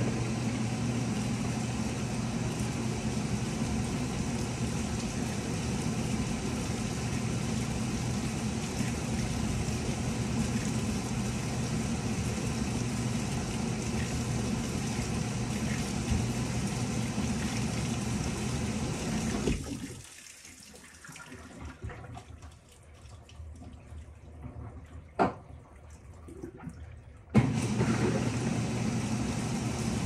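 Panasonic top-loading washing machine mid-wash: water streams into the tub from above while the load turns, with a steady motor hum underneath. A little after halfway the flow and hum stop, a single click follows, and both start up again near the end.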